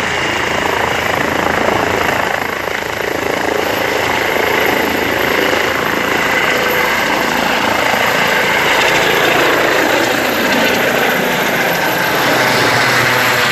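ADAC rescue helicopter lifting off and climbing away: loud, steady rotor and turbine noise that grows a little louder in the second half.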